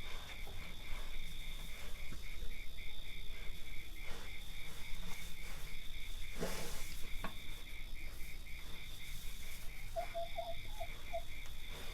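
Crickets chirping in a steady, even pulse several times a second over a continuous higher insect trill, with occasional soft crunches and rustles of cattle grazing.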